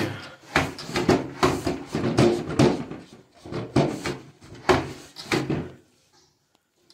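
A cloth rubbed hard along the slats of a louvered window shutter: about ten short scraping, knocking strokes, roughly two a second, with a pause about three seconds in. The strokes stop about a second before the end.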